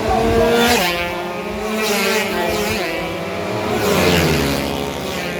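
Racing motorcycle engines running at high revs as machines pass one after another, the pitch dropping sharply as each goes by.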